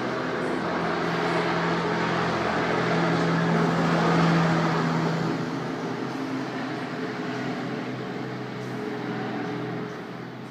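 Helicopter taking off: a steady engine and rotor hum that swells to its loudest about four seconds in, then slowly fades.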